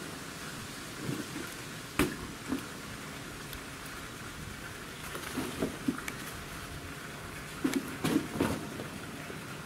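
Scattered dull knocks of a hollow plastic ball being batted and bounced on the ground by a tiger, a few around two seconds in, a cluster at about five to six seconds, and a louder cluster near the end, over a steady noisy background.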